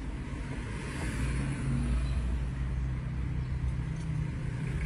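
Volkswagen Passat B8's engine idling, a steady low hum heard from inside the cabin, with a light rush that swells about a second in.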